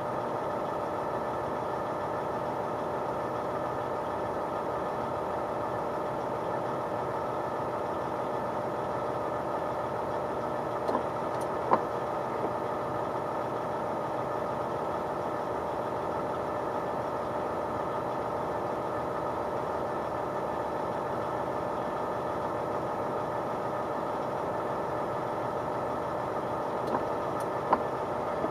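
Diesel engine running steadily at an even pitch, with a few short clicks about eleven seconds in and again near the end.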